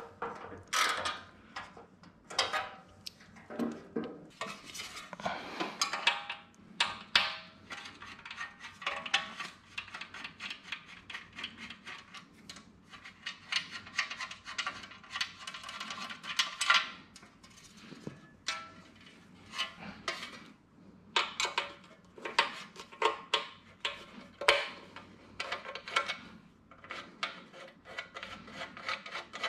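Aluminium wagon panels and small metal hardware handled during assembly: irregular clinks, taps and rubbing of metal on metal as the panels are fitted together and screws are turned by hand with a screwdriver.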